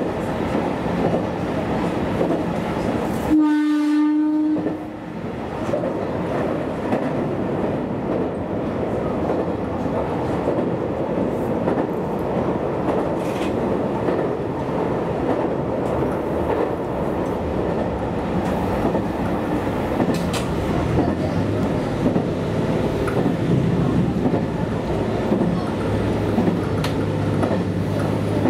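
JR Kyushu YC1 series diesel-hybrid railcar running along the line, heard from behind the driver's cab, with wheels clicking over the rail joints. A short horn blast of about a second sounds three seconds in, and a low steady hum comes in near the end.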